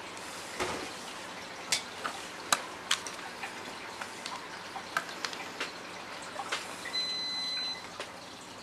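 Scattered light clicks and taps over a steady hiss, then a steady high electronic beep lasting just under a second near the end.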